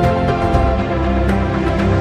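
Background music with held chords.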